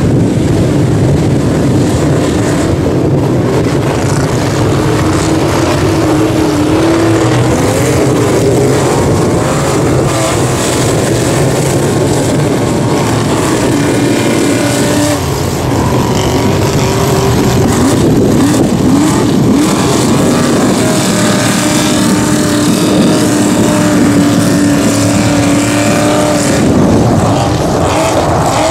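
Mega mud truck's engine running loud and revving hard under load in deep mud, its pitch climbing and dropping as it powers through, with the tyres churning mud.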